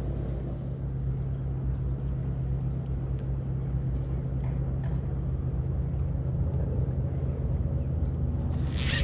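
A steady low engine hum. Near the end there is a brief rustling burst.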